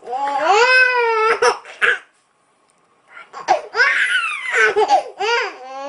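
Baby laughing and squealing in high-pitched bursts, with a pause of about a second in the middle.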